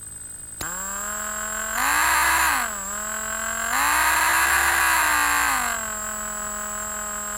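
Electric drill motor switched on about half a second in, running with a steady whine. It speeds up twice, going higher and louder, briefly the first time and for about two seconds the second, then settles back to its lower speed.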